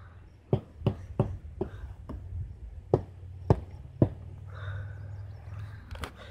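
About ten sharp knocks or taps at an irregular pace, loudest around the middle, over a steady low hum.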